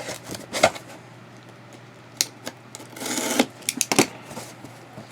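A mailed package being handled: scattered clicks and taps, a short rustle about three seconds in, then a quick cluster of sharp clicks.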